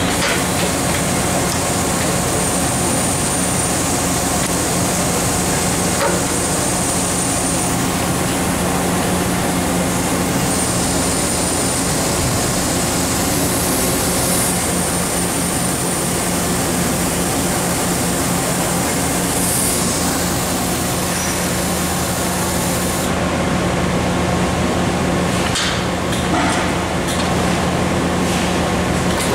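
Royal Master centerless guidewire grinder running: steady machine whir and hum with coolant spray noise. A short high whistle comes every four seconds or so in the first half, and there are two brief hisses of air near the middle.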